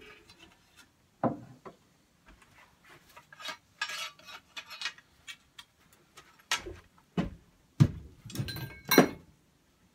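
Irregular metallic clanks and clinks of steel parts as the handlebar is taken off a 1953 Gravely Model L walk-behind tractor. The loudest knocks come near the end, one of them ringing briefly.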